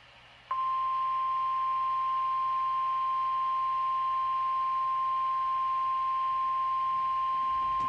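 NOAA Weather Radio warning alarm tone: one steady, loud, high single tone starting about half a second in, the signal that a weather warning broadcast is about to follow.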